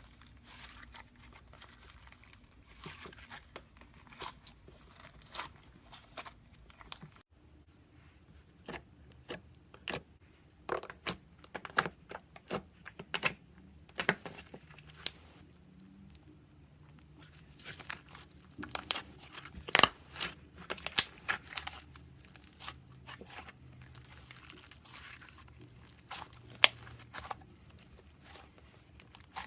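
Slime being squeezed and worked by hand, giving irregular crackling and popping clicks, some sharp and loud, with quieter stretches between.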